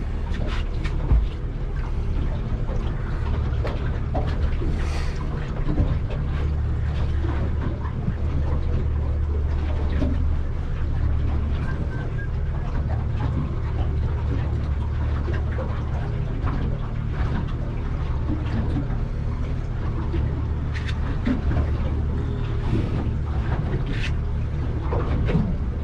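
Fishing boat's engine running steadily, with scattered light knocks and clatter on board.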